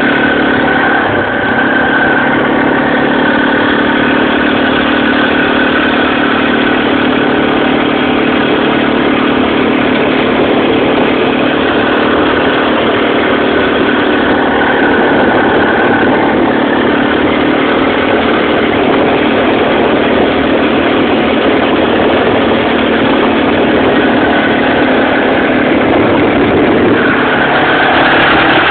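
Kymco Maxxer 450i quad's single-cylinder four-stroke engine running steadily while the quad is ridden along at an even speed.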